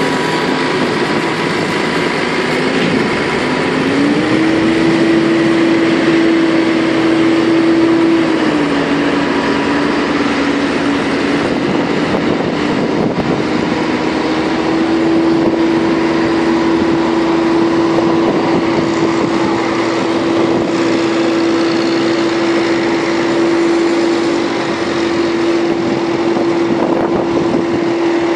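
Diesel engines of tractors and a telehandler working silage, running steadily at working speed. The main engine note rises about four seconds in, dips near eight seconds and climbs again around fourteen seconds, holding high to the end.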